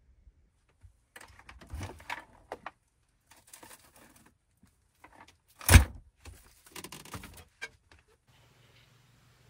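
Someone moving about inside a small camper van: rustling and handling noises, one sharp loud knock about halfway through, then more rustling and a click. A low steady hum starts near the end.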